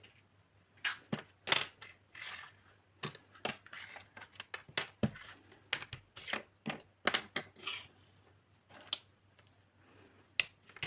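Small plastic toy kitchen pieces and packaging being handled: quick sharp clicks and taps mixed with short rustles, several a second, thinning to a few isolated clicks over the last few seconds.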